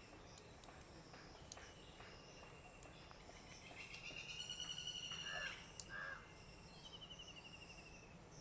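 Faint outdoor ambience of birds and insects: a longer high call about halfway through, two short lower calls right after it, and a fast pulsing trill near the end, over a low steady hum.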